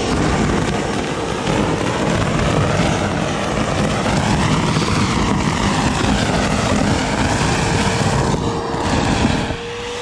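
DeWalt 38-litre stainless steel wet and dry vacuum running on suction, picking up fallen leaves: a loud rush of air over a steady motor whine, the rush rising and falling a little in pitch.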